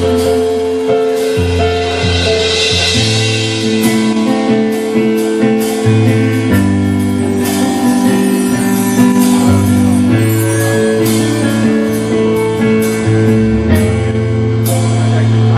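A dub band playing live. A deep bass line steps between notes under held chords, with regular drum hits throughout.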